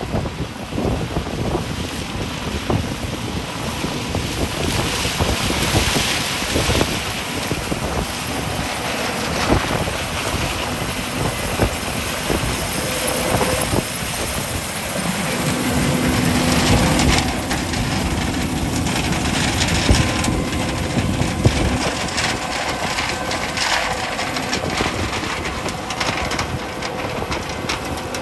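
Harvest machinery running steadily in a corn field, a loud continuous engine and machine rumble with scattered rattles and clicks.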